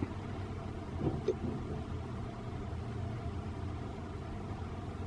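Steady low rumble of a car heard from inside the cabin, with a brief short sound about a second in.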